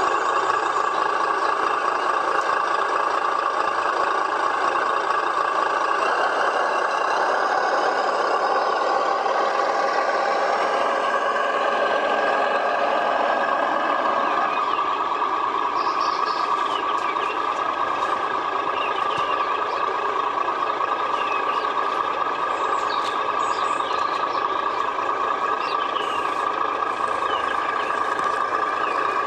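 Engine sound of a Tamiya Scania radio-controlled truck, a steady running hum with high ringing tones but little low rumble, as the truck drives with its tipper trailer.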